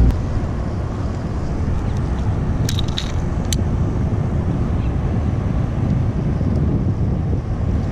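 Steady low outdoor rumble, with a few short metallic clicks about three seconds in as fishing pliers work a lure's treble hooks out of a fish's mouth.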